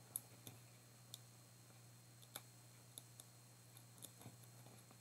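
Faint, scattered clicks and ticks, about ten of them, from fingers handling small pieces of cardstock on a tabletop; otherwise near silence.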